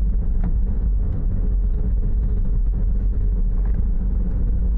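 Car interior noise while driving: a steady low engine and road rumble heard from inside the cabin, with a faint constant hum above it.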